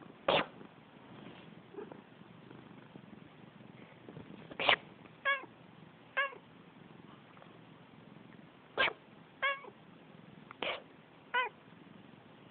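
A person sneezes four times, and a pet cat answers the last three sneezes with short meows, each coming about half a second after the sneeze, twice after the second sneeze.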